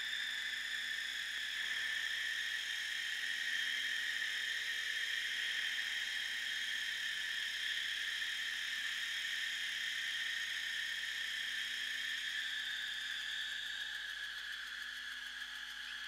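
Vacuum-tube ring modulator with neon relaxation oscillators making a steady, hissy electronic whine: several high tones sounding together that slowly drift a little lower in pitch, easing off near the end.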